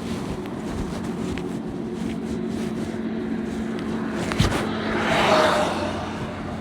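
KTM Gen 3 Duke's single-cylinder engine idling steadily through its stock exhaust. A sharp click comes about four and a half seconds in, followed by a brief rushing swell.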